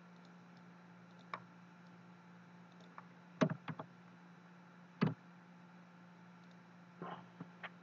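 Several scattered clicks of a computer mouse and keyboard, the loudest about three and a half and five seconds in, over a low steady hum.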